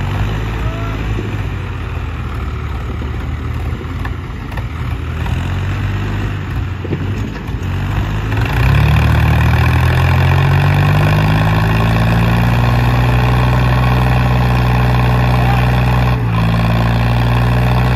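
Diesel tractor engines idling, then revved up hard about eight seconds in, the pitch climbing over a few seconds and then holding loud and steady at high revs. The tractors are under full load, straining against each other in a tug-of-war pull.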